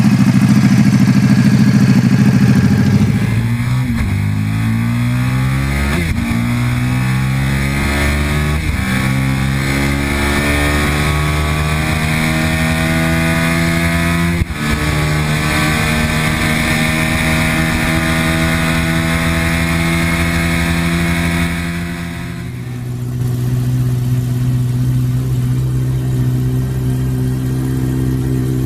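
A KTM sportbike's engine running, then accelerating hard up through the gears: the pitch climbs in each gear, with a break at each of four upshifts, then holds steady at speed. About 22 seconds in, the sound cuts to another sportbike's engine, with an aftermarket exhaust, running steadily at a low speed.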